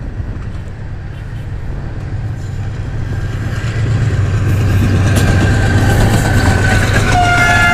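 Pakistan Railways AGE-30 diesel locomotive with a freight train passing at high speed: a low rumble swells as it nears and holds as it goes by. Its horn starts sounding near the end.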